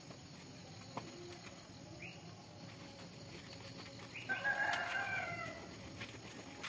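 A rooster crows once, a single pitched call of about a second starting about four seconds in, over a quiet background.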